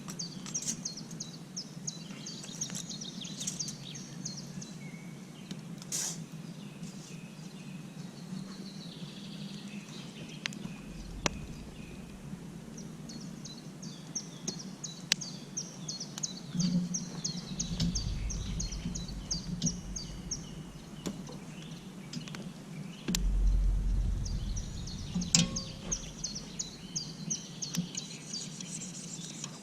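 Birds singing, in runs of quick high chirps a few seconds long, over a steady outdoor background. There are scattered sharp clicks, and low rumbles come in a few times in the second half.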